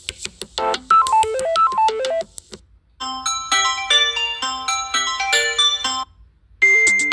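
Phone ringtones played one after another: a short electronic note melody repeats, then after a brief pause a different chiming ringtone plays for about three seconds, and another ringtone starts near the end.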